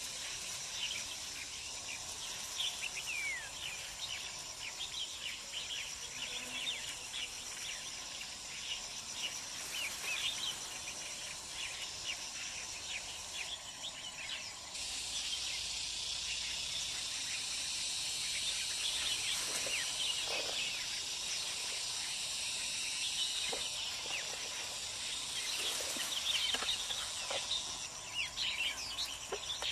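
Countryside ambience of birds chirping, with many short high chirps and a few gliding calls. From about halfway through, a steady high insect drone fills the background.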